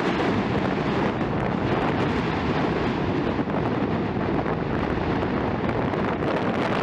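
A steady rushing roar from Mount Yasur's crater vent spattering lava, mixed with wind buffeting the microphone.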